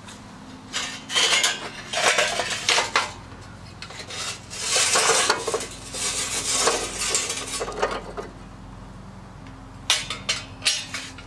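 Metal charcoal chimney starter clanking against the steel body of a Weber Go Anywhere grill as it is lifted and tipped, and lit briquettes tumbling out and clattering onto the charcoal grate. A few short, sharp knocks follow near the end.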